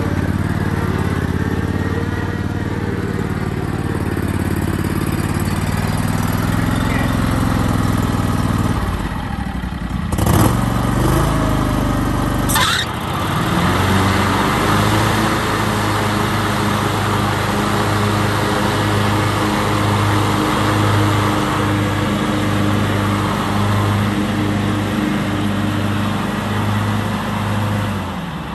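John Deere GX345 lawn tractor's 20 hp liquid-cooled V-twin engine running steadily as the tractor drives around on its hydrostatic drive. About twelve seconds in there is a brief disturbance and one sharp click, after which the engine settles into an even, pulsing note.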